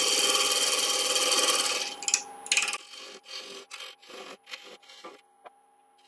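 Parting tool cutting into wet cherry spinning on a wood lathe, forming a tenon: a loud steady cut that stops about two seconds in, followed by several short, lighter touches of the tool, with the lathe's steady hum underneath.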